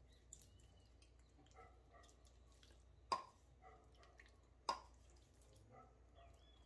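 Near silence broken by faint wet sounds of a knife working through raw chicken, with two sharp clicks about a second and a half apart, the first about three seconds in.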